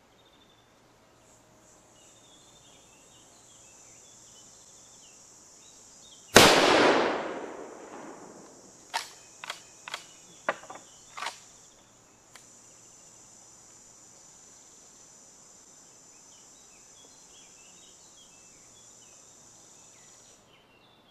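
A single shot from a Winchester Model 1895 lever-action rifle in 7.62x54R, very loud and dying away with an echo over about a second and a half. A few seconds later comes a quick run of sharp metallic clicks as the lever is worked to eject the spent case and chamber the next round, with one more click after them.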